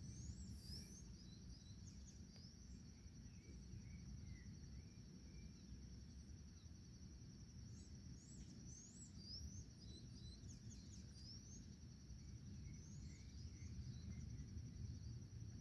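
Faint outdoor ambience: a steady high insect trill throughout, with short rising bird chirps scattered over it, most of them near the start and again in the middle, above a low rumble.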